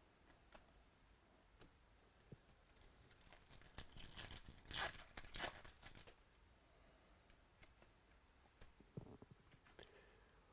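A trading-card pack's foil wrapper being torn open and crinkled, a rustling tear of about two seconds near the middle, with faint clicks of cards being handled around it.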